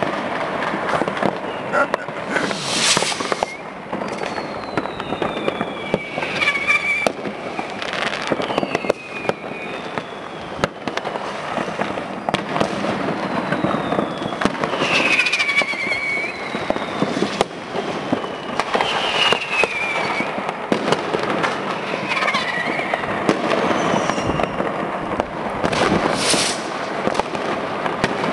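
Continuous barrage of fireworks and firecrackers: dense crackling and bangs, with several falling whistles from whistling rockets cutting through.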